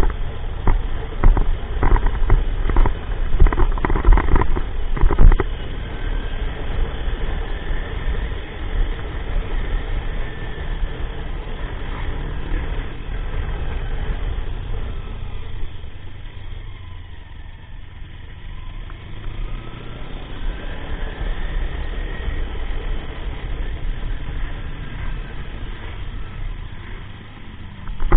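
Motorcycle engine running on the road, with wind and road noise; a rapid series of sharp hits in the first few seconds, then a steady drone whose pitch falls away and climbs again.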